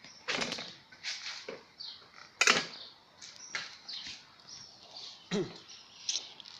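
Irregular clicks, knocks and rustles from handling a bicycle frame, its crank arms and a plastic battery mock-up taped to the frame, with the sharpest knock about two and a half seconds in.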